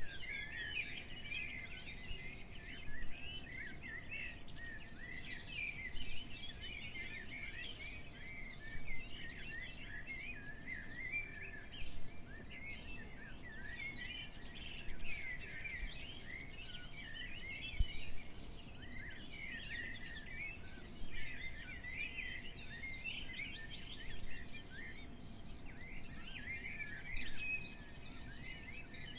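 Many small birds chirping and twittering together in a dense, unbroken chatter, with louder moments about every three seconds.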